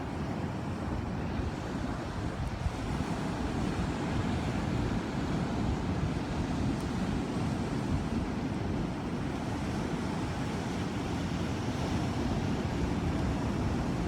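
Ocean surf washing in, a steady, dense rushing noise that swells slightly a few seconds in.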